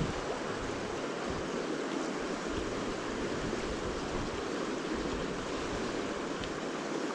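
Fast, high river water rushing steadily: the river is running in flood, well above its normal level.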